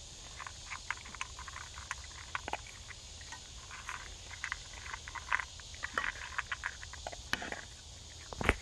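A dog eating dry kibble from a metal bowl: irregular crunching and small clicks of the food against the bowl, with a louder knock near the end.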